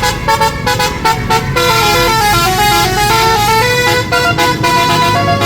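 Bus telolet horn, a set of electric trumpet horns, playing a quick tune of stepped notes with several tones sounding together. A low engine rumble runs underneath.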